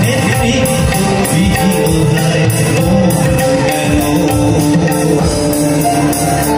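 Live band playing an instrumental passage of a Bengali song: a keyboard melody over tabla and octapad rhythm.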